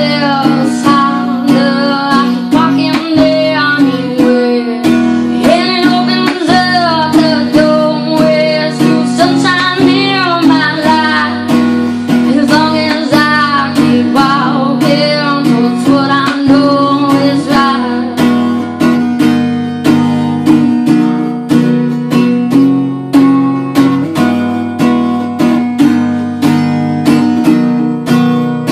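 Acoustic guitar strummed in a regular rhythm while a woman sings an original song over it; about two-thirds of the way in the voice stops and the guitar strumming carries on alone.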